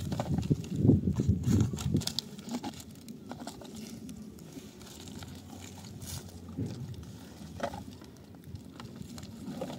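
Rustling and crinkling of a plastic sack with the crunch of stones underfoot as litter is picked up off stony ground. It is loudest in the first two seconds, then drops to scattered quieter crackles.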